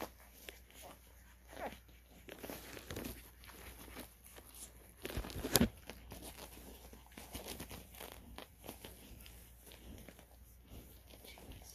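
Newborn Cane Corso puppies nursing and squirming against their mother on a blanket strewn with straw: irregular soft rustling and crinkling, with a louder rustle about five and a half seconds in.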